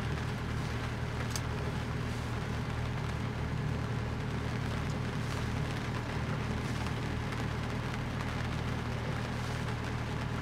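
Sailboat's engine running steadily while the boat motors slowly, a constant low hum under a steady hiss.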